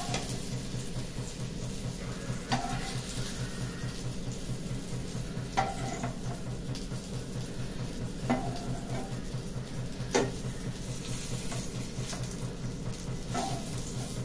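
Oil sizzling in a non-stick frying pan while a metal spatula lifts out the fried slices. A sharp clink of the spatula against the pan comes every two to three seconds, over a steady low hum.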